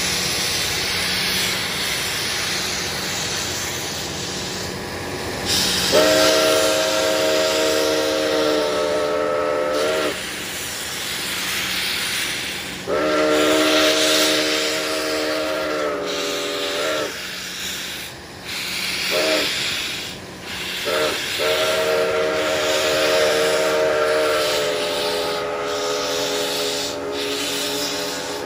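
Nickel Plate Road 765 steam locomotive sounding its steam whistle for a road crossing: two long blasts, two short toots, then a final long blast, over a steady hiss of escaping steam.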